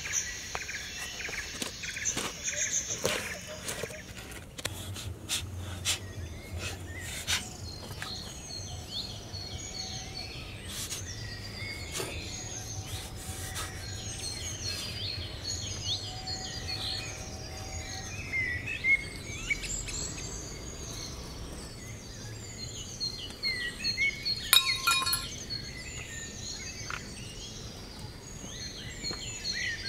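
Outdoor ambience of songbirds chirping and calling throughout, with a high insect trill in the first few seconds. Scattered soft clicks, and one sharper click late on.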